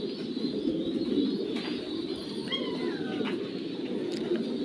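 Many domestic pigeons cooing at once in a caged pigeon loft, a steady low chorus.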